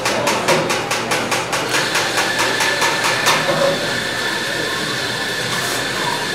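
A rapid, even clacking, about six knocks a second, stops after about three seconds. From about two seconds in, an espresso machine's steam wand hisses steadily with a high whistling tone as milk is steamed in a steel pitcher.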